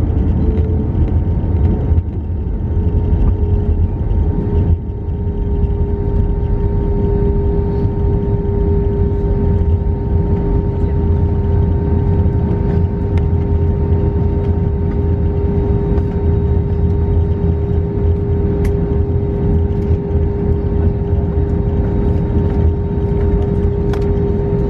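Cabin noise inside an Airbus A321 taxiing: a steady low rumble under the constant whine of its idling jet engines, the whine's pitch dropping slightly about a second in.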